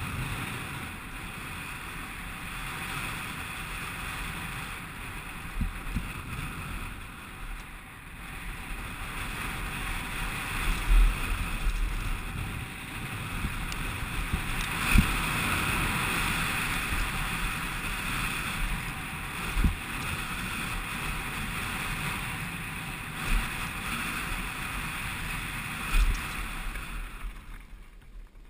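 Wind rushing over a helmet-mounted action camera's microphone and tyres rolling over gravel as a Specialized Big Hit downhill mountain bike descends at speed. Heavy thumps come every few seconds as it hits bumps and lands jumps. The noise dies down near the end as the bike slows.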